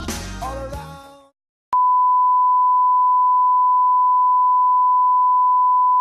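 Music dies away in the first second, then after a short silence a steady beep starts, one pure tone around 1 kHz held without change: a test tone.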